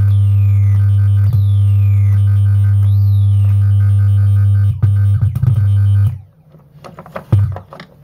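Circuit-bent UM3561 sound-effect chip putting out a loud, steady electronic buzz with high falling siren-like sweeps repeating about every second and a bit. About six seconds in the tone cuts out, then sputters back in short, irregular crackly bursts.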